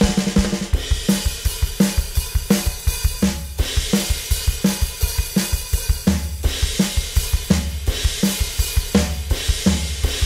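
Donner Backbeat electronic drum kit played through its sound module: a steady, fast groove of kick drum, snare and cymbal hits.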